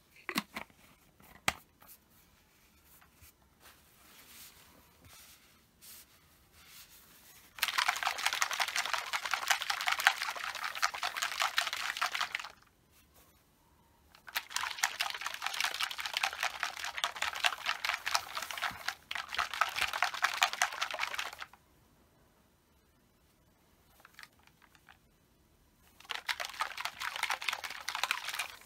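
A capped plastic bottle of canola oil mixed with omega-3 and krill oil is shaken hard in three bouts, a fast rattling slosh with short pauses between. A few light clicks come first, near the start.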